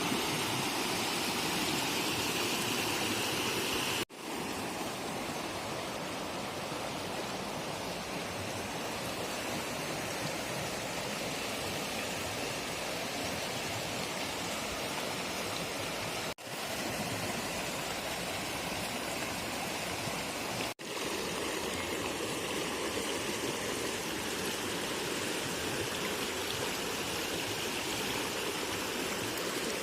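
Narmada River water flowing steadily, the sound dropping out briefly three times.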